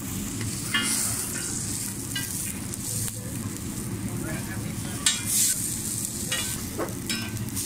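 Bun kebabs frying on a large flat iron griddle (tawa), sizzling steadily, with a metal spatula scraping and clinking against the griddle every second or two; the loudest clink comes about five seconds in.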